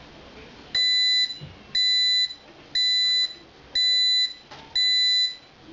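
Alaska bread maker beeping to signal the end of its baking program: a steady, high electronic beep about once a second, each about half a second long, starting about a second in.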